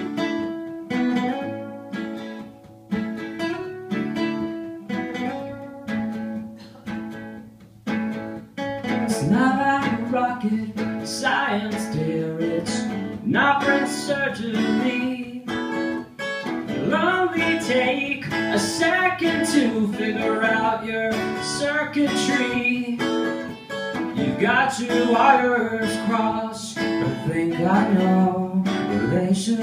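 Two acoustic guitars playing a song live: for the first eight seconds or so single chords are struck about once a second and left to ring, then the playing fills out and a man starts singing over the guitars.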